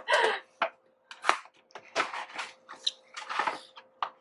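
Brown paper gift wrapping rustling and crackling as it is pulled open by hand, in several short irregular bursts with one sharp crackle about a second in.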